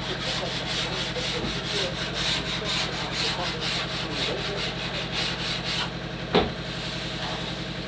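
Hand sanding of a large wooden cupboard-door panel: quick, even back-and-forth rubbing strokes that stop about six seconds in, over a steady machine hum. A single sharp knock follows shortly after.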